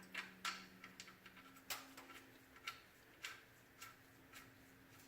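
Faint, sharp metallic clicks of a ratchet, about one every half second, as the oil drain plug with its new crush washer is run in.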